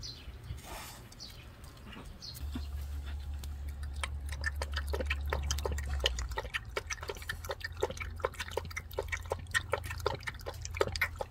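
Jindo puppy lapping milk from a bowl: a quick, steady run of wet laps, about four a second, starting a couple of seconds in.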